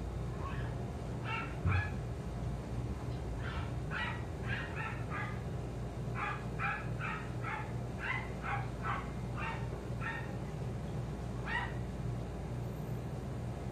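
Repeated short, high-pitched animal calls, about twenty of them in uneven runs, over a steady low hum. A brief low thump comes about two seconds in.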